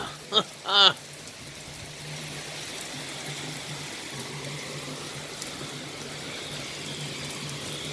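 Heavy rain pouring down steadily in a torrential downpour, with a faint steady low hum underneath.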